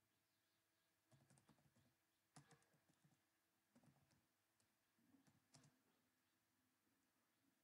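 Near silence, with a few faint clusters of short clicks scattered through it.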